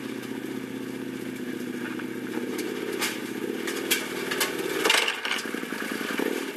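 ATV engine running steadily at low speed, with a few sharp clacks about three and five seconds in.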